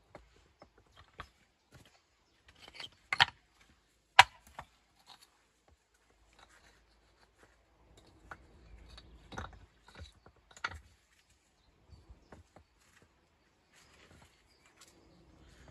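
Scattered knocks and clacks of stone on stone during dry stone walling, irregular and unhurried, the two sharpest about three and four seconds in.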